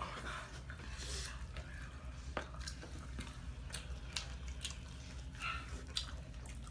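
Chicken wings being eaten: scattered small clicks of chewing and mouth noises over a steady low hum.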